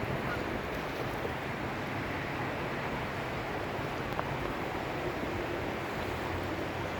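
Steady rushing outdoor noise with a low hum underneath.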